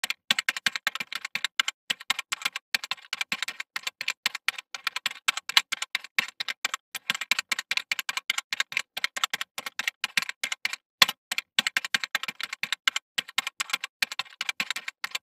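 Keyboard typing: a fast, irregular run of keystroke clicks, many a second, with a brief pause about eleven seconds in.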